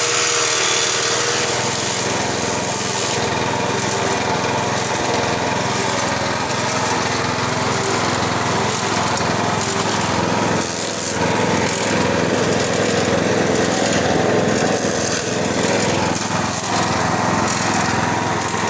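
Motor-driven grass chopper machine running steadily, with a short dip in level about eleven seconds in.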